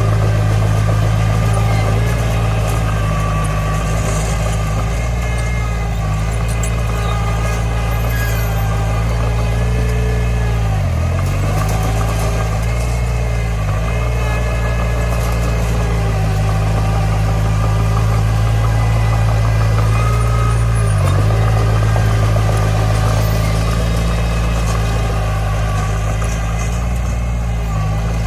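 Komatsu D20 bulldozer's diesel engine running steadily, dipping briefly in pitch twice, about eleven and twenty-one seconds in.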